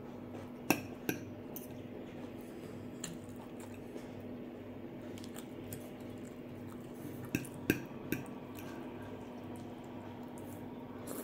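Metal fork and knife clinking and scraping on a glass plate of rice: a couple of sharp clinks about a second in and a quick run of three more past the middle, with soft chewing sounds and a faint steady hum between.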